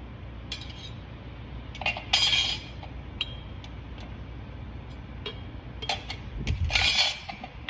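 Metal clinks and two short rattles from TH350 automatic transmission parts, clutch plates and drum, being handled and turned by hand, over a low steady hum.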